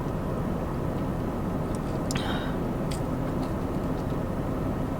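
Steady low background rumble with no speech, with a few faint clicks and a brief soft noise about two seconds in.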